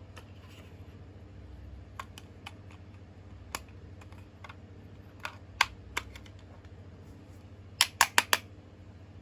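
Scattered sharp clicks and taps, with a quick run of four clicks near the end.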